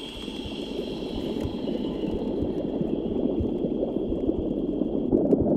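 Animation sound effect of blood: a bubbling, gurgling liquid rumble that swells steadily louder, with a thin high whine beneath it that stops about five seconds in.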